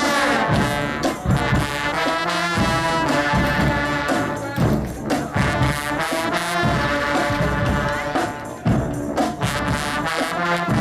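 Low brass choir of trombones, tubas and other low brass playing a tune together. Held chords are mixed with short, punchy accented notes.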